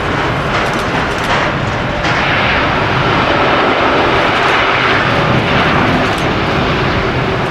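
Jet airliner engines running loud and steady, a broad noise without a clear tone.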